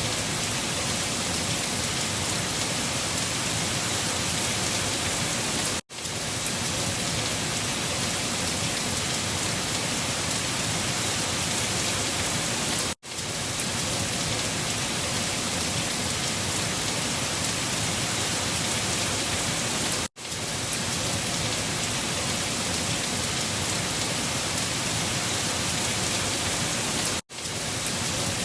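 Steady rain falling: an even hiss of many drops. It is a short recording played in a loop, cutting out briefly and fading back in about every seven seconds.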